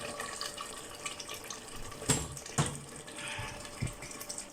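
Mutton and poppy-seed curry sizzling in oil in a pot as it is roasted (bhuna), a steady hiss with a few clinks along the way.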